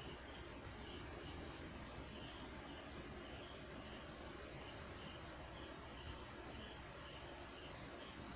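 Crickets trilling steadily at a high pitch, with a fainter, lower chirp pulsing about three times a second underneath.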